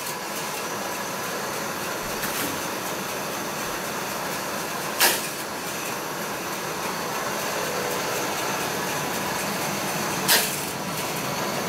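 Motorized toy roller coaster built from plastic construction rods running: its lift motor gives a steady mechanical whir, with two sharp clacks about five seconds apart.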